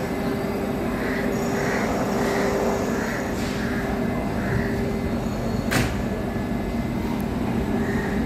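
Steady hum and machinery noise of a Vande Bharat Express electric trainset standing at a platform, with one sharp click a little before six seconds in.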